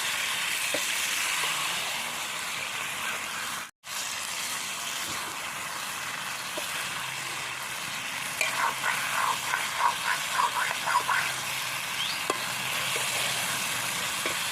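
Prawns sizzling in oil in a pan as they are fried down in spices (the kosha stage), with a spatula stirring; a run of about ten quick scraping clatters against the pan comes past the middle. The sound drops out briefly about four seconds in.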